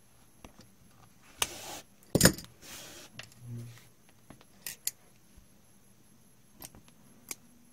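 Handwork noises on a kilim under repair: a few sharp clicks of a small metal hand tool and short rustles of wool and cotton yarn being pulled across the weave. The loudest click comes about two seconds in, and a few lighter ticks follow later.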